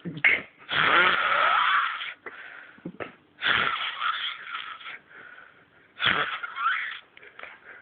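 Loud snoring: three long, noisy breaths about two and a half seconds apart, with a whistling tone sliding through each.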